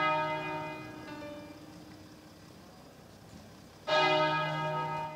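Church bell tolling: a stroke rings and slowly fades, a faint stroke follows about a second in, and another full stroke comes near four seconds in, its hum and overtones hanging on until it is cut off.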